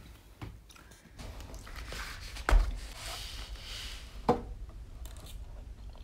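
A person eating spaghetti with a fork: light clicks and scrapes of the fork, and a soft slurping hiss in the middle. Two sharp knocks come about two and a half seconds in and again near four and a half seconds.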